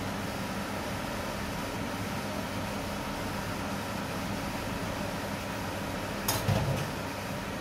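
Steady whirring hum and hiss of an induction cooktop running at medium heat under a frying pan of omelette egg. A single sharp clunk comes about six seconds in.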